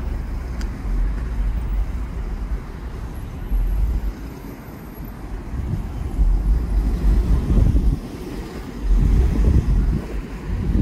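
Wind buffeting the microphone outdoors, a deep uneven rumble that surges and eases in gusts, dropping back twice before picking up again.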